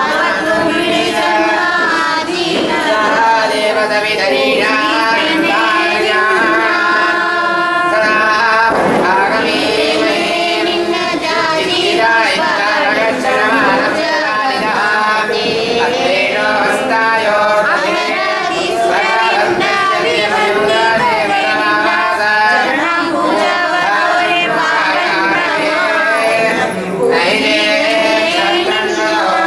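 A group of voices, mostly female, singing a devotional hymn together.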